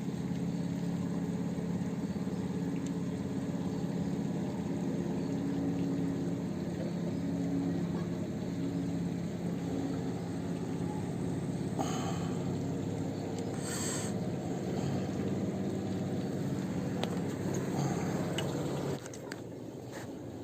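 A steady low mechanical hum, like a motor running, with a brief hiss or rustle twice in the middle; the hum stops suddenly near the end.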